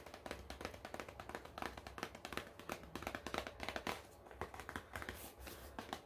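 Long fingernails tapping quickly and unevenly on a small cardboard skincare box, a dense run of light clicks.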